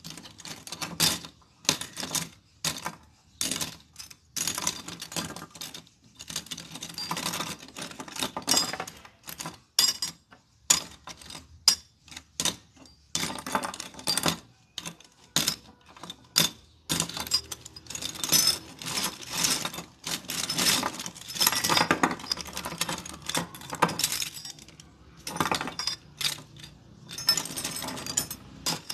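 A heap of steel concealed cup hinges for wardrobe doors being rummaged through and handled, clinking and clattering against each other and the wooden tabletop in irregular runs with short pauses.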